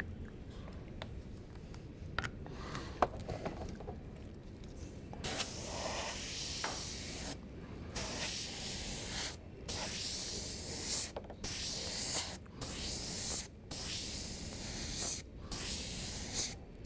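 Airbrush spraying silver paint in about seven bursts of hiss, each a second or two long with short breaks between, starting about five seconds in.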